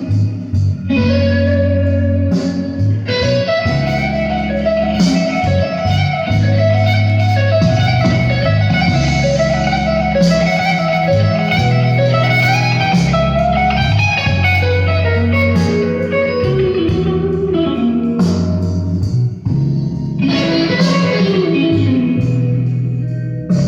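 Music led by electric guitar, with single-note guitar lines over a steady bass.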